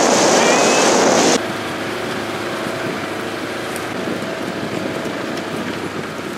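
Polaris Ranger UTV driving across a field, with heavy wind buffeting the microphone for about the first second and a half. Then the level drops abruptly and the ride goes on as a quieter, steady running noise.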